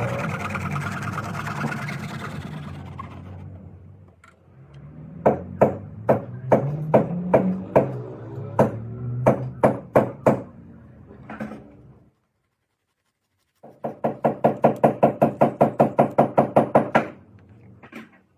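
A series of sharp, irregular knocks over a low pitched background, then after a brief pause a quick, even run of clicks, several a second, for about three seconds.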